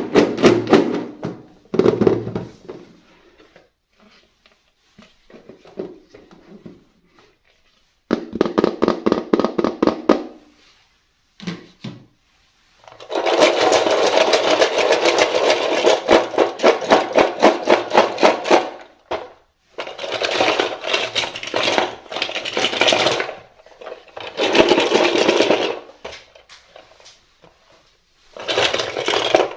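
Handling noise: several bursts of rapid clicking and rattling, each a few seconds long, with short pauses between them.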